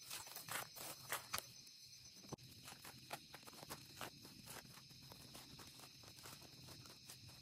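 Hand hoe chopping into and dragging through loose soil: a run of soft knocks and crumbling scrapes, with a few sharper strikes in the first couple of seconds and fainter, closer-set ones after.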